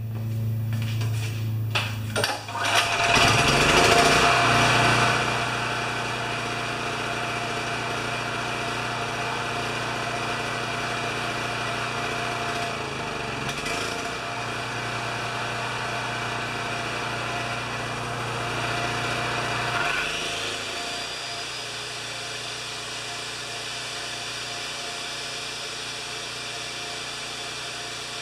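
Champion 3000-watt generator's single-cylinder Honda-clone engine being pull-started: a couple of seconds of cranking, then it catches, revs up and settles into steady running without surging, its carburettor jet opened up one size. About twenty seconds in the note changes and drops slightly.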